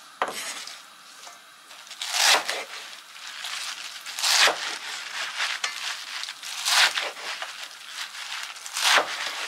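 Chef's knife slicing through a bunched handful of fresh spinach on a bamboo cutting board: a crisp crunching cut about every two seconds, five in all, with lighter cuts between.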